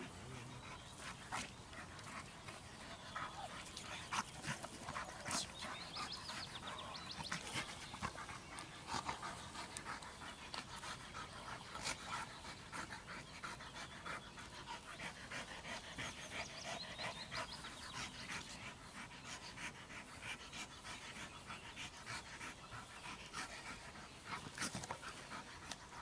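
Rottweiler panting steadily.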